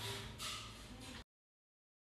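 Faint room hiss that cuts off abruptly a little over halfway through, leaving dead silence.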